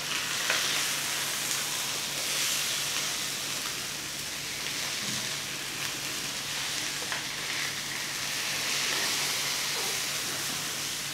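Masala-coated goat brains shallow-frying over a low flame in a little oil on a flat nonstick tawa, a steady sizzle. A couple of light spatula taps come as the pieces are turned over once one side is cooked.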